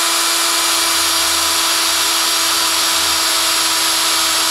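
Handheld power drill running at a steady speed, its bit cutting the head off a rivet in the moulded plastic case of a circuit breaker: a loud, even whine over a hiss.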